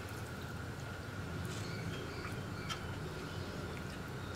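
Wooden spatula stirring thin coconut-milk payasam in a metal uruli: soft liquid sloshing with a few faint scrapes and clicks, over a steady low hum.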